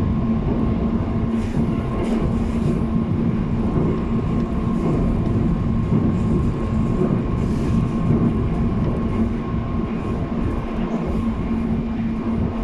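JR East 719 series electric train running at speed, heard inside the passenger car: steady rail and running rumble with a constant low hum and a faint higher whine. This unit is the one the uploader labels an abnormal-noise car.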